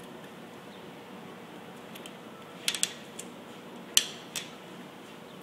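Black plastic clamp strap of a bicycle wine rack being fitted around the bike's frame tube by hand: a quick run of small plastic clicks just before three seconds in, then one sharp click about four seconds in and a softer one just after.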